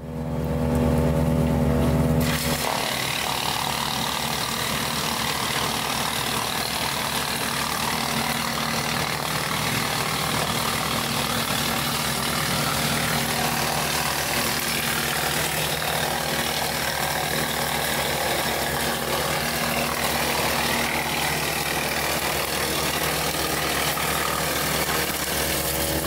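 Tractor engine driving a Woodland Mills TF68 PRO PTO-driven wood chipper. It starts as an evenly pitched engine drone, then about two seconds in gives way to a louder, fuller rushing noise that holds steady.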